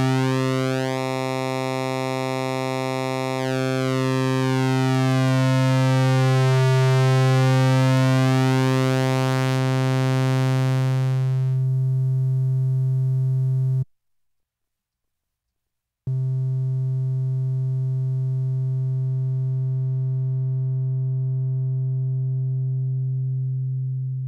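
Moog Little Phatty analog synthesizer holding one low note while its oscillator's wave shape is swept, so the tone keeps changing, then goes from buzzy to mellow. The note cuts off about 14 seconds in. After two seconds of silence a duller note at the same pitch sounds, losing its brightness and fading out near the end.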